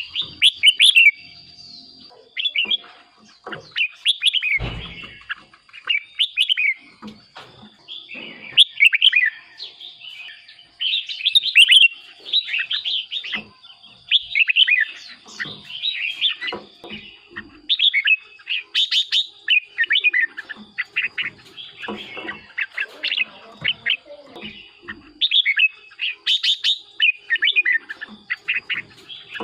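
Red-whiskered bulbul singing: a rapid run of short, bubbly whistled phrases, one after another with brief gaps. A single dull knock sounds about five seconds in.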